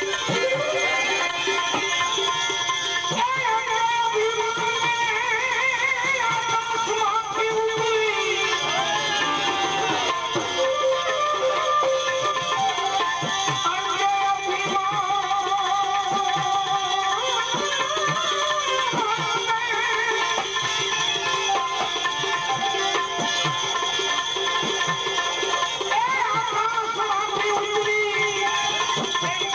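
Gujarati devotional bhajan music: a wavering melodic line over a steady beat of percussion.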